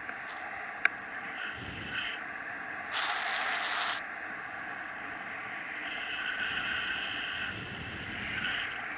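Steady rush of airflow and wind over the camera microphone of a paraglider in flight. A sharp click comes just under a second in, and a louder burst of hiss lasts about a second from roughly three seconds in.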